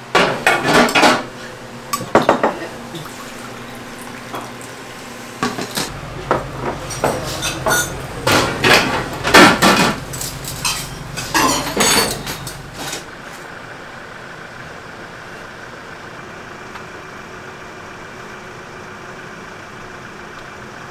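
Dishes and spoons clattering: earthenware soup bowls knocked and set down and metal spoons clinking against them, in a run of sharp clatters for about the first thirteen seconds. After that only a steady low hum remains.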